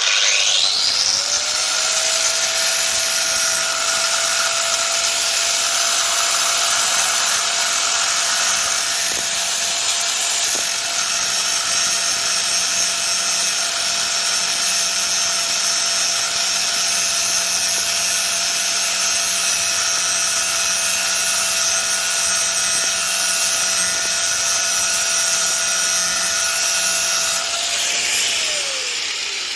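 Angle grinder cutting metal, grinding down the centring lip of a BMW i3 front wheel hub so a 5 mm hubcentric spacer can sit flush. The motor spins up to a steady whine with a continuous grinding hiss, then the grinding stops and the motor winds down near the end.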